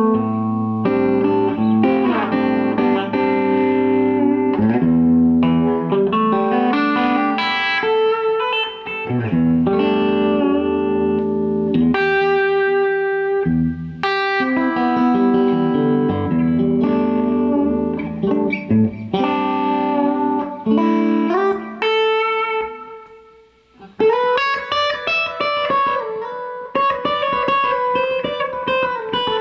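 Electric guitar played with the fingers: a single improvised-sounding line with notes ringing over one another. Near the end it breaks off briefly, then a new phrase of quicker notes begins.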